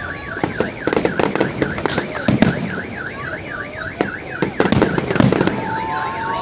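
Fireworks bursting with scattered sharp bangs over an alarm siren that warbles quickly and steadily up and down, about four times a second.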